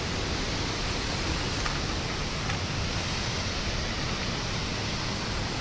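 Steady, even rush of fast-flowing river water, with no break or change.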